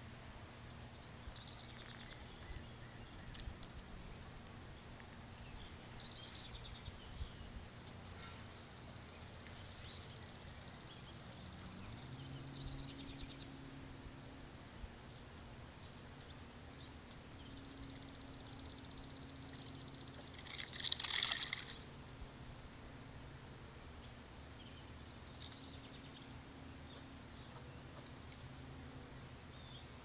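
Quiet outdoor park ambience: faint high-pitched calls that come and go, under a low steady hum that steps up in pitch about twelve seconds in. A little past two-thirds through, one brief loud rasping burst stands out above the rest.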